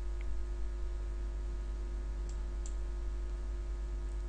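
Two faint computer mouse clicks a fraction of a second apart, about two seconds in, over a steady low electrical hum.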